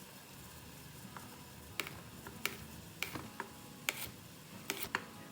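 A string of light, sharp clicks and taps at irregular intervals, starting about two seconds in: kitchen utensils knocking against cookware.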